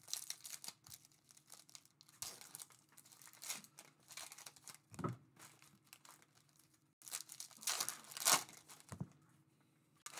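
Foil trading-card pack wrappers being torn open and crinkled by hand as the cards inside are pulled out and shuffled. The sound comes in irregular bursts, loudest about eight seconds in.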